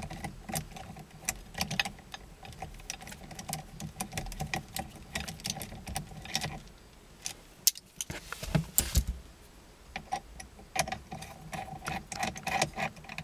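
Ratchet wrench clicking in quick, uneven runs as a 10 mm Allen socket on an extension backs out a loosened steering-wheel bolt, with a few duller metal knocks about eight seconds in.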